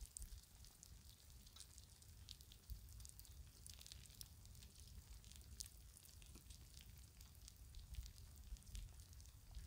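Near silence, with faint, irregular crackling over a low rumble.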